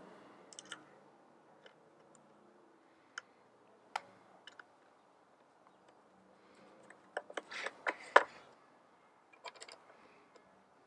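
Scattered small metallic clicks and taps as a steel felling dog and its screws are handled and set against a Stihl MS 170 chainsaw's housing, with a short flurry of them a little past halfway.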